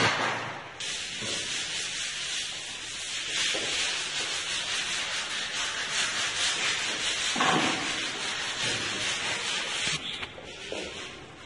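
Decorative wall paint being worked onto a wall by hand: a steady, scratchy rubbing of the applicator across the surface, which stops about ten seconds in.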